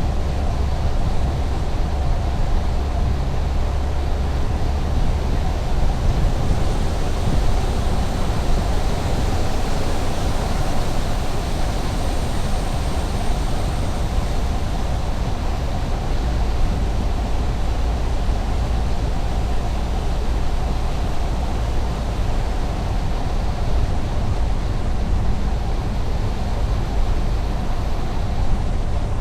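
Steady road noise of a car driving: a constant low rumble with tyre hiss and no change in pace.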